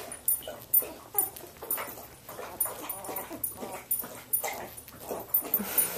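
Newborn Samoyed puppies, under two weeks old, whimpering and squeaking in many short, irregular cries.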